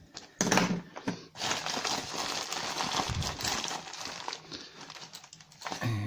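Plastic packing bag crinkling and rustling for about four seconds as hands rummage in it, after a brief louder sound about half a second in.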